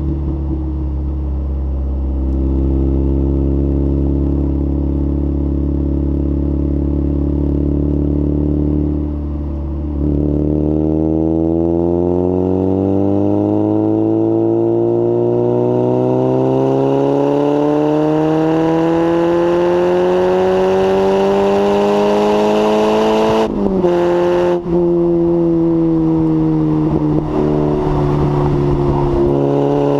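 Lotus Elise S1 111S four-cylinder engine through a Bell & Colvill exhaust with the catalytic converter removed. It holds a steady note under way, eases off briefly, then pulls with pitch climbing steadily for a long stretch before an upshift drops the revs, and it settles to a steady note.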